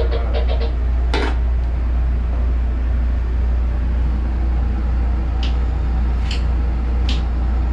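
The boat's engine hums steadily in the wheelhouse. A rapidly pulsing alarm bell of about six strokes a second rings out and stops within the first second, and a sharp click follows. A few fainter clicks come near the end.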